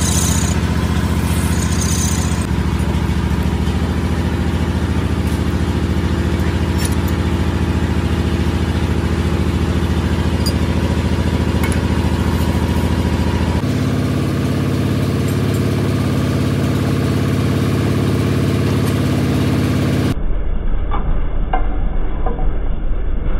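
Metal lathe running with a steady motor hum. In the first two seconds the cutting tool turns a steel ring, adding a high scraping hiss as chips come off. Near the end, a few sharp metallic clinks of wrenches on a nut of a steel hub.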